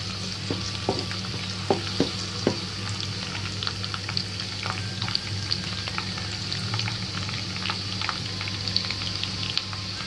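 Chopped garlic and whole dried red chillies sizzling and crackling in hot oil in a nonstick wok as they fry until they change colour. A few louder knocks in the first couple of seconds come from the spatula stirring against the pan.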